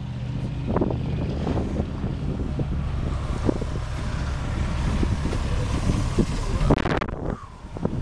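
Vehicles driving past on a snow-covered street: an SUV's engine hums low and steady, then a heavy dump truck goes by, its engine and tyre noise building to the loudest point about six seconds in. Wind buffets the microphone, and the noise drops off sharply about seven seconds in.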